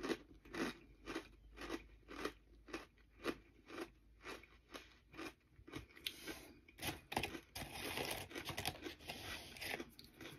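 Close-up chewing of crunchy ghost pepper chips, about two crunches a second, turning into a denser crackle in the last few seconds.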